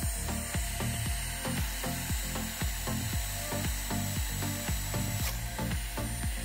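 Festool Domino joiner running as it is pressed against the edge of a walnut board to cut a mortise. Its motor gives a steady high whine over a hiss, dipping briefly about five seconds in. Background music with a steady beat plays underneath.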